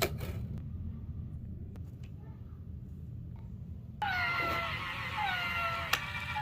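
Cat meowing: short meows that each fall in pitch, about one a second, starting suddenly about four seconds in over a low steady hum. Before them there are only a few faint clicks.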